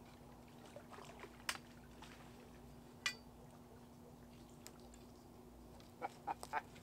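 Faint, scattered clicks and light splashes as a small channel catfish is lifted from the water in a long-handled landing net. There is a quick run of four taps just after six seconds, over a low steady hum.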